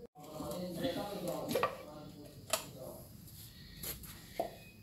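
A voice talking faintly in the background for the first couple of seconds, with a few short, light knocks spread through the rest.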